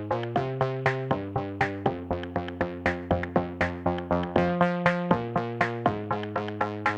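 Background electronic music: synthesizer chords over a fast, steady drum-machine beat.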